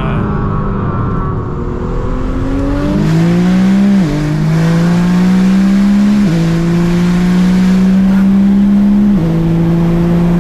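Heavily tuned Nissan R35 GT-R's twin-turbo V6 pulling hard under acceleration, its note climbing and dropping sharply on three quick upshifts about four, six and nine seconds in.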